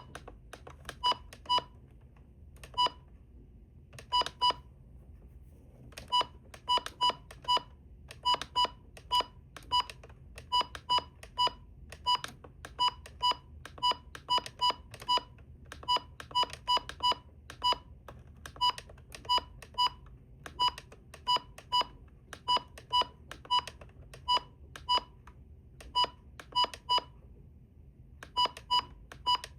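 Maxx Digital weather radio's button beeps as its keys are pressed during menu setup: short beeps of one pitch in quick runs at about two to three a second, with a couple of brief pauses.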